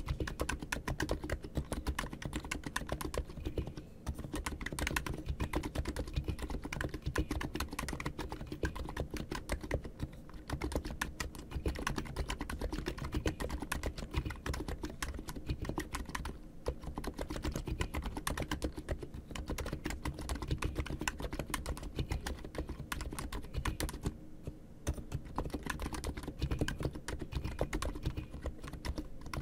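Fast, continuous typing on an ABKO K990 V3 Skymoon electrostatic-capacitive (contactless) keyboard fitted with tall SA-profile PBT keycaps, its wire stabilizers freshly lubed. There are a few short breaks in the keystrokes.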